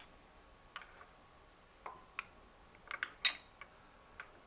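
A handful of light metal clicks and clinks, the loudest a little past three seconds in, as a collet block holding the workpiece is turned over and seated in a milling machine vise.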